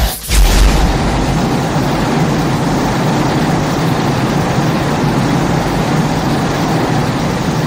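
Godzilla movie sound effect: a sudden loud blast, then a steady, dense rushing rumble with a low hum underneath.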